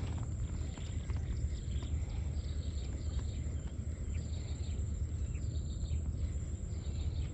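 Outdoor ambience: a steady low rumble with faint, scattered chirps of insects and birds and a thin, steady high whine.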